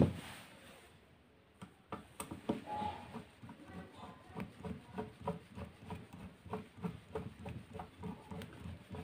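Hands fitting an earth wire onto the terminal of a vacuum cleaner motor: a sharp click, then a run of small clicks and soft knocks that settle into about three a second.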